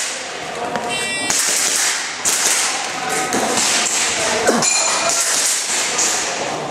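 Airsoft pistol shots in a quick string, sharp cracks with thuds and taps of pellets hitting targets, during a timed ActionAir stage. A short electronic shot-timer beep sounds about a second in.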